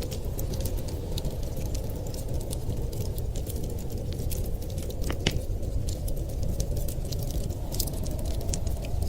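Wood fire crackling in a fireplace: scattered sharp pops and snaps, one stronger pop about five seconds in, over a steady low rumble.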